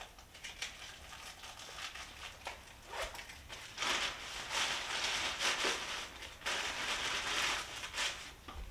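Thin plastic carrier bag rustling and crinkling as it is handled: a few short rustles at first, then a few seconds of dense crinkling in the middle, then lighter rustles again.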